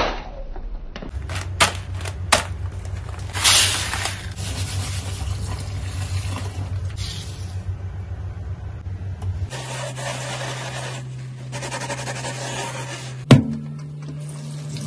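Dishes being handled in a stainless-steel kitchen sink: a metal colander knocking and scraping against the sink, with stretches of water pouring and splashing. There are a few sharp knocks, the loudest near the end, over a steady low tone underneath.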